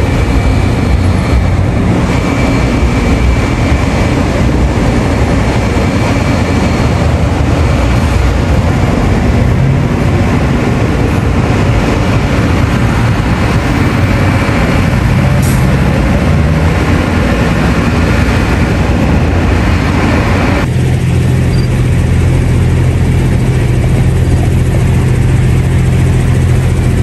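Idling and slow-moving buses and car traffic: a steady low engine rumble with road noise. About 21 seconds in the sound changes abruptly to a steady low engine hum with far less road noise.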